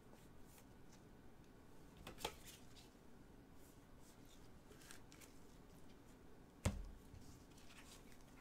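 Quiet handling of trading cards and their packaging: faint rustles and small clicks, with one sharp click about two seconds in and a louder knock with a dull thud about two-thirds of the way through.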